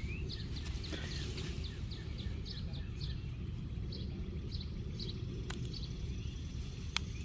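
Outdoor garden ambience: a steady low rumble with a small bird chirping repeatedly, short high chirps about two a second that thin out after the first half. There are two faint clicks near the end.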